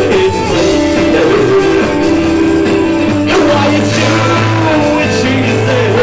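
Live rock band playing: sustained chords over a steady low bass, with a voice singing in places.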